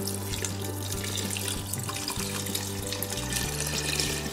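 Water pouring steadily from a glass measuring jug into a pot of chopped soup vegetables, over background music.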